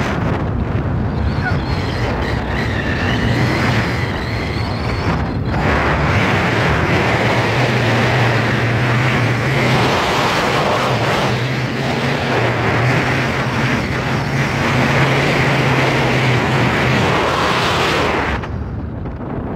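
Wind buffeting the microphone as an Inmotion V11 electric unicycle is ridden fast over a gravel trail, with a steady low hum through the middle stretch. The rush dies down suddenly near the end as the ride slows.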